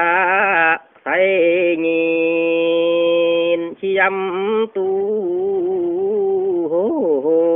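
A man singing a Dao Tuyển folk song solo and unaccompanied, in long drawn-out notes with a slight waver, breaking off briefly about a second in and twice more before the end.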